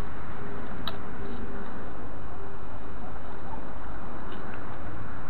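Steady rustling noise of a pole-mounted magnetic sweeper being pushed over dry grass, with a sharp click about a second in and a fainter one later, the kind of click made when a small bit of metal snaps onto the magnet.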